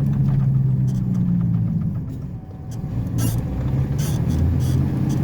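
Flatbed truck's engine running steadily while driving on a dirt road; the engine note dips about halfway through and comes back, with a few knocks and rattles from the truck over bumps near the end.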